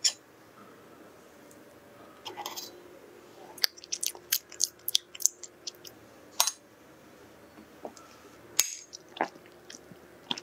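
Quick, light clicks and taps of a fork against a ceramic dessert plate, most of them clustered from about three and a half to six and a half seconds in, with a softer rustle a little before them.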